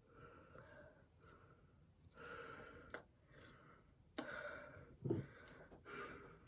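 Faint breaths and sniffs, four short ones, as a person smells a cologne bottle up close, with a couple of small clicks between them.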